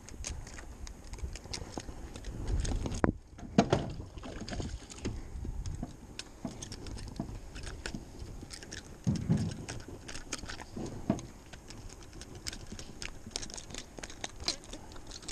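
A small hooked jack crevalle being brought to a small boat and handled: splashing and flapping with scattered clicks, rustles and knocks, and a louder thump about three and a half seconds in.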